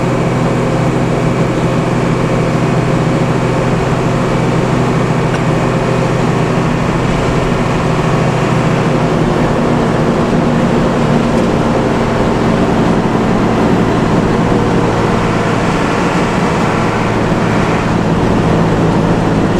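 Intercity coach's engine droning steadily at cruising speed, with road and tyre noise, heard from inside the bus.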